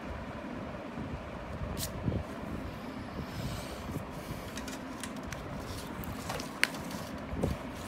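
Steady low background rumble with a faint hum, broken by scattered light clicks and knocks; the sharpest click comes about six and a half seconds in.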